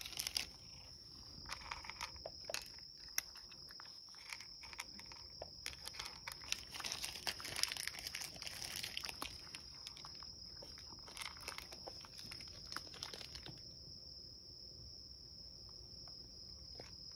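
A cat crunching dry kibble, with crisp chewing clicks that come thickest in the middle and stop a few seconds before the end. A steady high-pitched whine runs underneath.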